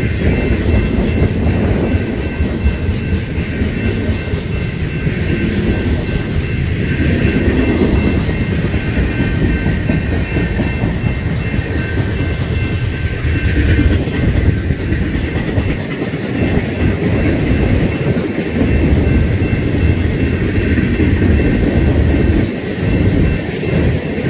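Freight cars of a BNSF manifest train (covered hoppers and tank cars) rolling past at track speed: a loud, steady rumble with the clickety-clack of steel wheels on the rails, and a faint steady high whine above it.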